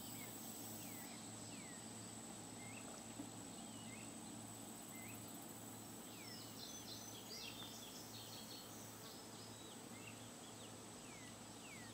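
Faint outdoor background: a bird repeating a short chirp about once a second, with a few quicker higher chirps partway through, over a steady high insect drone.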